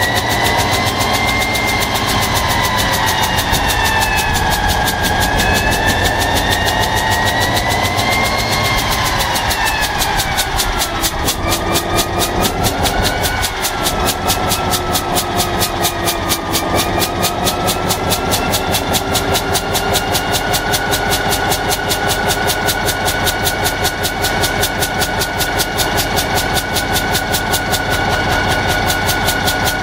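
EMD GT-26 locomotive diesel engine running, with a fast even pulsing and a high whine that wavers up and down in pitch, drops about ten seconds in, then holds steady.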